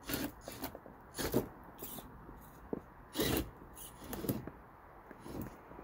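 SCX24 micro RC crawler scraping and clattering over popsicle-stick ramps and foam rocks in short, irregular bursts, about six in all.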